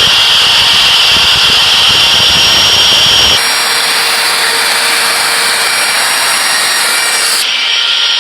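Electric router running at full speed, cutting a door hinge mortise in wood through a hinge template: a loud, steady motor whine with cutting noise. About three seconds in the sound changes abruptly, the low rumble dropping away, and it shifts again near the end.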